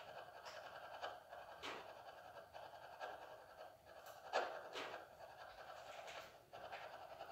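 Spirit box device hissing with faint radio static, broken by short irregular crackles and bursts, the loudest about four seconds in.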